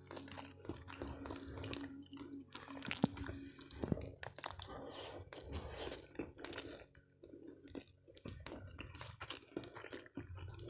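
Close-miked eating: chewing mouthfuls of rice and rendang, with crunching of a kerupuk cracker, as many small irregular clicks and crackles.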